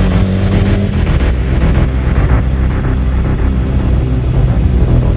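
Sport motorcycle engine running steadily at low revs as the bike rolls slowly along.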